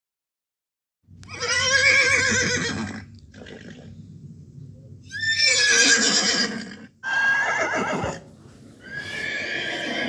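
Horse whinnying: a long quavering neigh about a second in, then two more around five and seven seconds in, and another starting near the end, with quieter sounds between the first two.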